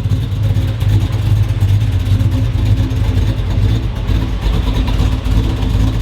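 Steady low mechanical hum with a constant pitch, running evenly throughout.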